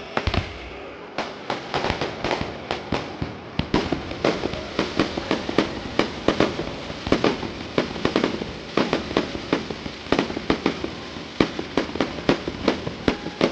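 Fireworks display: aerial shells bursting in quick succession, a few bangs at first and then a dense run of several bangs a second from about four seconds in.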